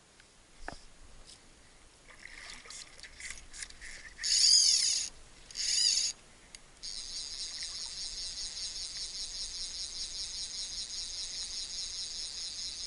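Fly reel's clicker drag buzzing in two loud bursts as line is pulled off, after a run of sharp ticks. From about seven seconds in, a steady high-pitched rattle with a fast, even pulse.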